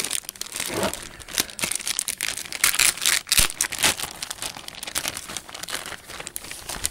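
Clear plastic wrapping crinkling and rustling as a laptop is pulled out of it by hand, in irregular crackles that are loudest around the middle.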